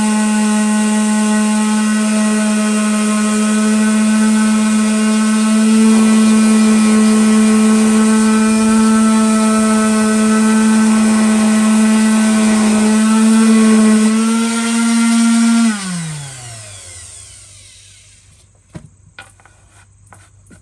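Electric sander running steadily against a wood round, its motor whine holding one pitch, then switched off about sixteen seconds in and winding down, falling in pitch. A few faint clicks follow.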